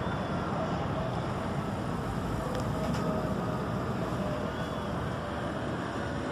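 Steady, even rumble of a large jet airliner flying overhead at altitude.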